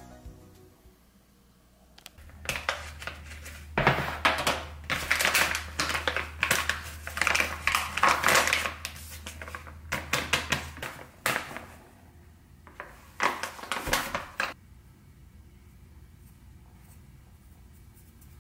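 Plastic bag of flour crinkling and rustling in irregular bursts as it is handled, opened and emptied into a glass mixing bowl, with a low steady hum under the first part. The rustling stops about two thirds of the way through, leaving only a few faint ticks.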